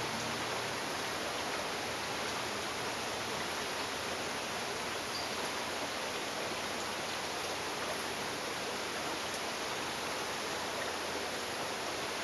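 Water splashing and streaming off the paddles of a turning, moss-covered wooden water wheel: a steady, even rush.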